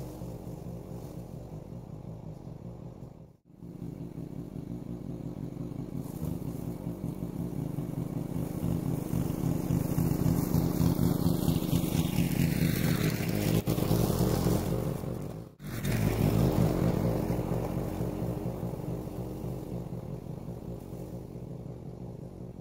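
Gas push lawn mower engine running steadily, louder in the middle stretch. It breaks off briefly twice, about three and a half and fifteen and a half seconds in.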